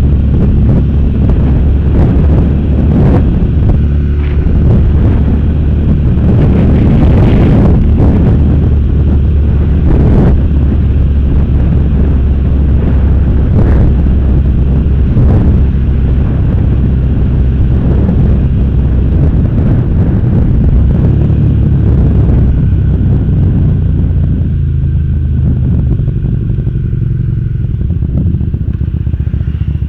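Motorcycle engine running steadily under way, with wind buffeting the on-board camera's microphone in short gusts. The engine note drops and eases off in the last few seconds.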